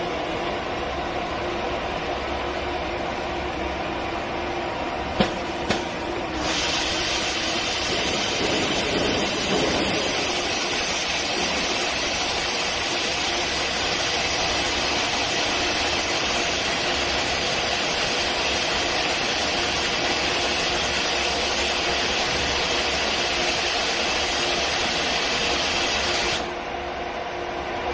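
Steady hum of an ATC CNC router during its automatic tool-length measurement. After two sharp clicks, a loud even hiss like compressed air blowing starts abruptly about six seconds in and cuts off suddenly about a second and a half before the end.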